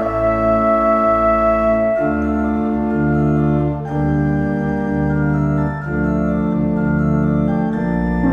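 Background music: held organ-like keyboard chords that change about every two seconds.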